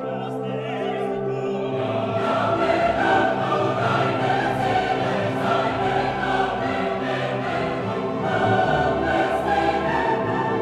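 Background music: orchestral music with a choir singing held notes, growing louder about two seconds in.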